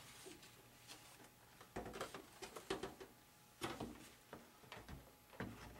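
Faint, scattered light clicks and knocks of model airplane parts being handled and set into the fuselage.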